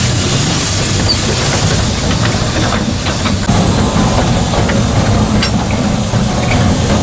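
Steady steam hiss over the low running rumble of a narrow-gauge steam locomotive, heard from its footplate, with a few light knocks now and then.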